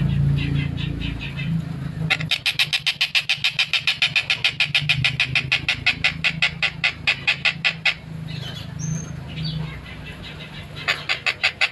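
Tengkek buto (collared kingfisher) calling in rapid, harsh series of short repeated notes, about six a second. A fainter run comes first, then a long loud run from about two seconds in to near eight seconds, a pause, and another short burst near the end, over a steady low hum.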